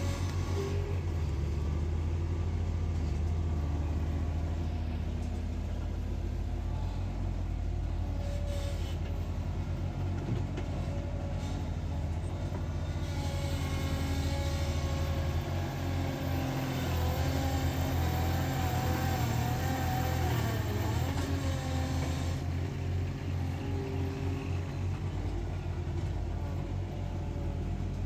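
Diesel engines of a Bobcat skid-steer loader and a Kubota mini excavator running steadily as they work and level soil. A wavering whine rises over the engine drone for a few seconds past the middle.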